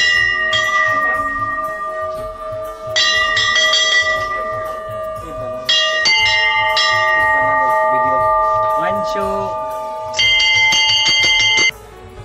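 Hand-rung Hindu temple bells clanging, struck in quick runs, with several bells of different pitch ringing on over one another. The ringing stops abruptly near the end, leaving only crowd voices.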